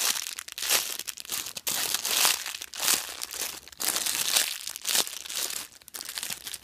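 Clear plastic packaging bags crinkling as a hand squeezes the squishy toys inside them, over and over in quick irregular squeezes.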